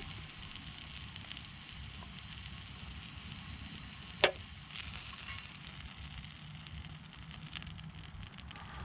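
Wood campfire burning with a low rumble and faint crackling, and one sharp pop about four seconds in.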